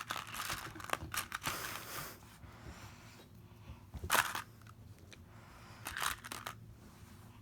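Handling noises from the BeanBoozled box as the next jelly bean is picked out: a run of clicks and rustling at first, then two sharp clattering bursts about four and six seconds in.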